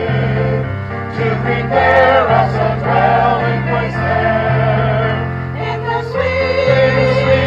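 Mixed choir of men and women singing together over sustained low accompanying notes that change in steps.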